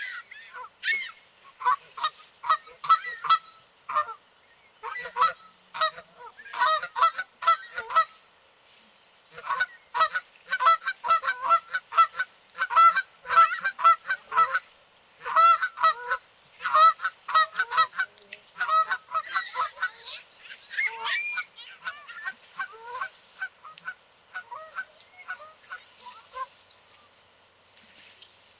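A flock of Canada geese honking: many short honks in quick runs, several birds overlapping, with brief pauses between runs. The calls thin out to a few scattered, fainter honks in the last few seconds.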